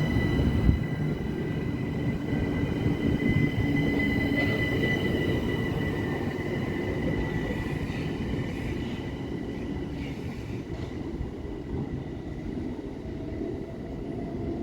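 Electric commuter train running on the main line: a dense low rumble of wheels on rail under a steady high whine, gradually fading as it moves away.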